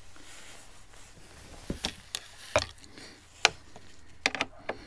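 Scattered sharp clicks and light knocks from hand tools and fairing fasteners being handled while a motorcycle's plastic panel is unscrewed, with a quick run of several clicks near the end.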